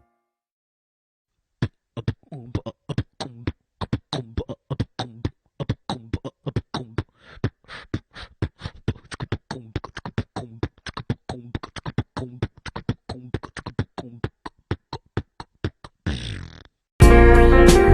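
Beatbox ringtone: a steady, fast rhythm of mouth-made drum hits, clicks and short hummed bass notes, starting after a second or two of silence and ending with a brief hiss. New ringtone music starts just before the end.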